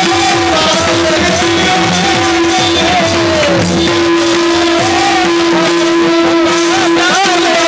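Warkari kirtan devotional music: a steady drone under a wavering melody, with pakhawaj drum strokes and the chorus's small brass hand cymbals (taal) keeping the beat.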